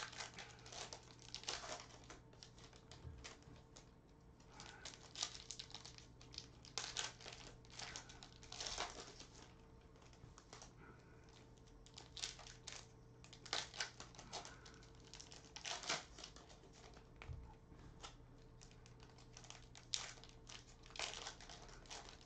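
Foil trading-card pack wrappers crinkling in short, irregular bursts as the packs are handled and torn open by hand, over a faint steady hum.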